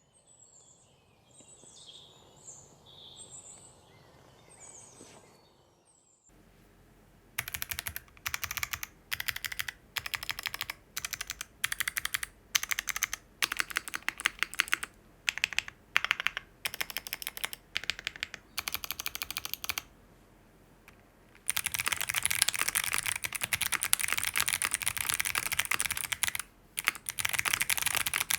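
Mechanical keyboard with Kailh Box Jade clicky switches on a POM plate: after a few seconds of faint high chirps, single modifier keys are pressed one at a time with sharp clicks and gaps between, then about 21 seconds in it breaks into fast continuous typing.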